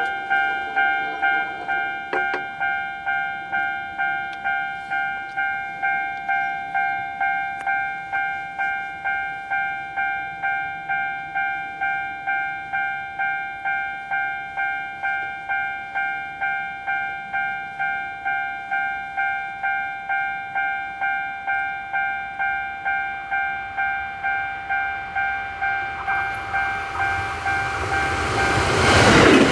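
Electronic railway level-crossing bell ringing, a steady repeating ding about twice a second. From a few seconds before the end a Kintetsu Urban Liner Next limited express approaches. Its rumble grows loud over the bell as it passes close by.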